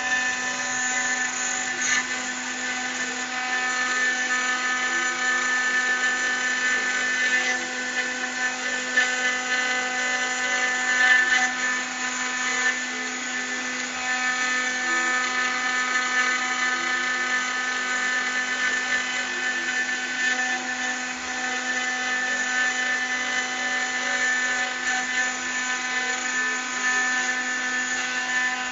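CNC spindle running at high speed while its engraving bit cuts lettering into aluminium: a steady whine of several tones over a gritty cutting noise that swells and eases a little as the tool moves.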